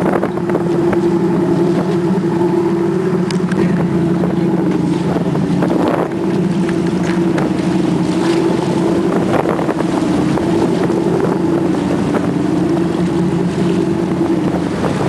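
Motorboat engine running steadily with a constant drone.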